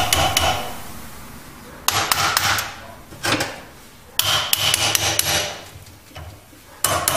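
Hammer blows on the steel spindle and quill parts of a benchtop drill press, in several bursts of quick strikes, each with a short metallic ring.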